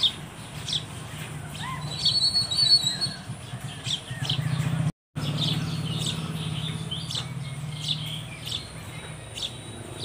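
House sparrows chirping: short, high chirps repeated about once or twice a second, with a louder, harsher call about two seconds in. A steady low hum runs underneath, and all sound drops out for an instant about halfway.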